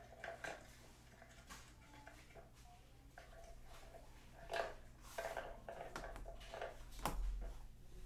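Golden Retriever puppy working a plastic puzzle feeder: irregular light clicks and knocks of the plastic covers being nosed and lifted against the tray and tile floor. The knocks grow more frequent in the second half, the loudest a sharp knock about seven seconds in.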